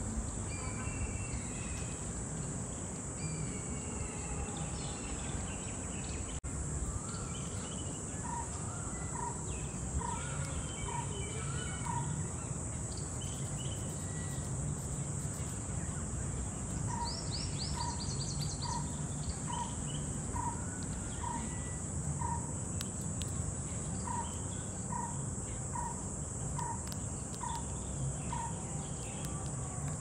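Outdoor ambience with several birds calling and singing. One bird repeats a single hollow note about once a second in three runs of five to seven notes. A steady high insect-like hiss and a low background rumble run underneath.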